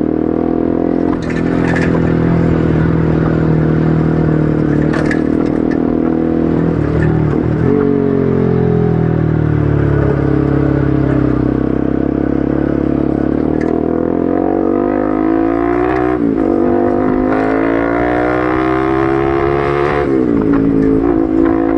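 Bajaj Pulsar RS200's single-cylinder engine running through an Akrapovic aftermarket exhaust while riding, its pitch climbing under acceleration and falling back, with sharp drops in pitch at gear changes about a third of the way in, past the middle and near the end.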